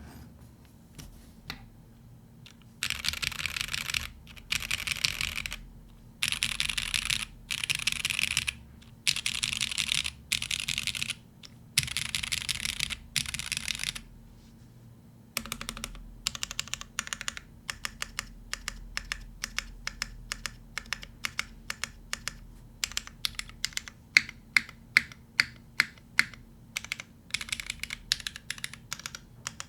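Typing on a gasket-mounted Iron165 custom mechanical keyboard with lubed Hyperglide Black linear switches on an aluminum plate. The first half is a series of dense one-second bursts of very fast keystrokes with short pauses between them. The second half is steadier typing at several keystrokes a second, with a few louder strokes about two thirds of the way in.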